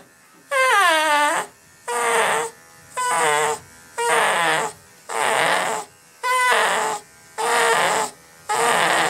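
Toy poodle crying out over and over, about one drawn-out cry a second; the first cries slide down in pitch, the later ones are rougher.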